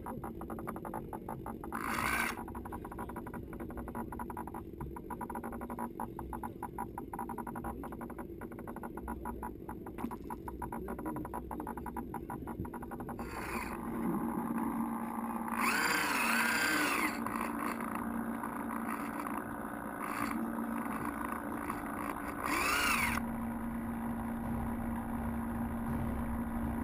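Electric drive motor of a radio-controlled Coast Guard 47 model boat, heard from the boat's own onboard camera. It whines, rising and falling in pitch as the throttle is worked, most loudly in the second half, and then settles into a steady hum as the boat runs out across the water.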